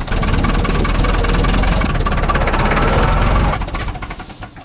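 Diesel engine of heavy farm or forestry machinery running loudly and steadily, then dying away about three and a half seconds in.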